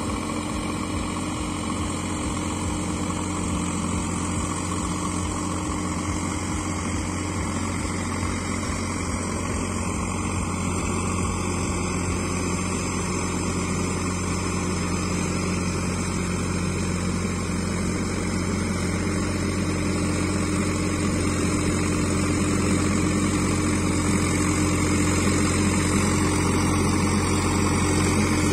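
Sonalika 50 RX tractor's three-cylinder diesel engine running steadily as the tractor works through mud, growing gradually louder as it comes closer.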